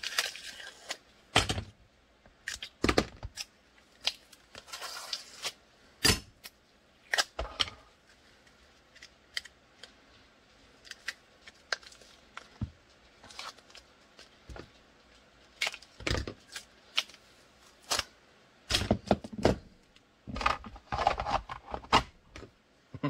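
Handling sounds of kydex being separated from a tape-wrapped gun mold and worked on a cutting mat: a scattered run of short clicks, taps and rustles, busier near the end.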